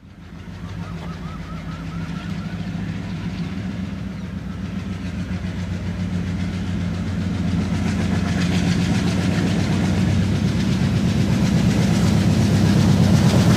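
WDM3D diesel-electric locomotive No. 11131, its ALCo 251 engine chugging under power with a steady low throb, growing gradually louder.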